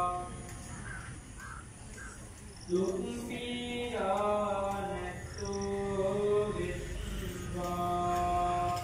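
Chanting voice holding long, steady notes, breaking off for about two seconds near the start. Crows caw a few times in the gap.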